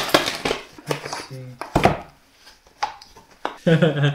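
Unpacking noises: a small blade scraping and cutting through the tape on a white foam box, with packing material rustling and light clicks, and one dull thump about two seconds in.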